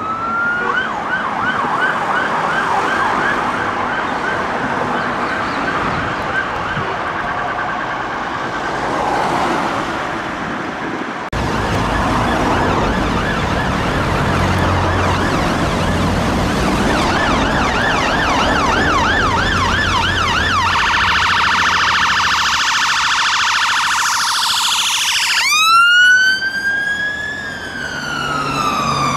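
Emergency vehicle sirens. First an unmarked Skoda Octavia's fast-warbling siren passes. Then a Mercedes-Benz Sprinter ambulance's siren switches from a fast warble to a steady high tone, and about four seconds before the end to a slow rising-and-falling wail, over traffic rumble.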